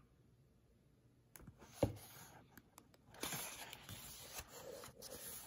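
A book page being turned by hand: a single light tap, then a soft paper rustle and slide of the page and fingers over the paper.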